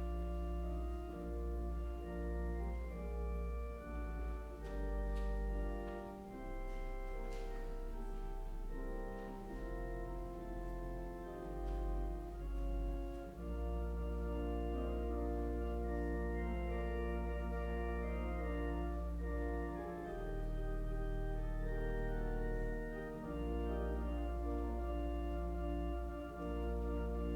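Organ playing slow, held chords over deep sustained bass notes, the harmony changing every few seconds.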